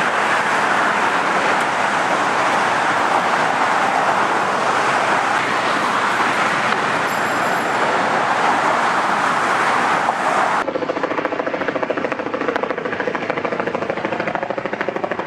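Steady traffic noise from the bridge roadway beneath the Brooklyn Bridge walkway. About ten seconds in it changes abruptly to a boat's engine running with a rapid, even pulse.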